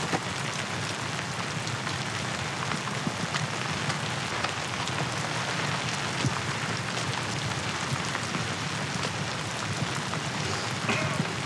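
Steady heavy rain falling, with a few faint short knocks or rustles over it.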